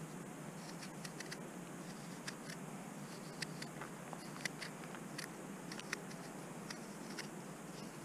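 Victorinox Waiter pocketknife blade cutting into a hard, unripe apple: a dozen or so crisp clicks and snaps at irregular intervals, over a faint steady background hiss.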